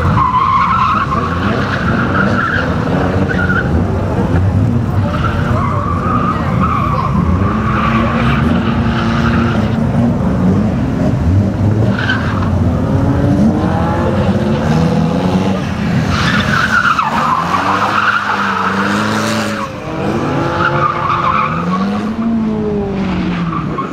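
BMW E46 Compact's engine revving up and down hard while its rear tyres squeal in repeated spells as the car slides sideways through the slalom cones.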